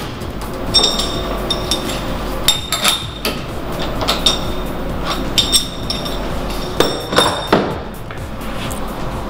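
Sharp metal-on-metal clinks and taps, several in irregular clusters, each ringing briefly, as the steel machine vise on a CNC mill is worked and the stainless steel part is taken out of it.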